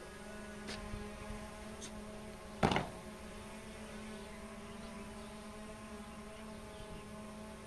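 A steady machine hum holding a few constant tones, with a single sharp knock about two and a half seconds in and a few faint clicks before it.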